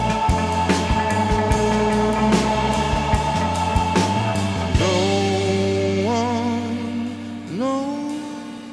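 Rock band playing, with drum hits under held notes. About five seconds in the drums stop, and the held notes slide up in pitch a few times as the music fades away.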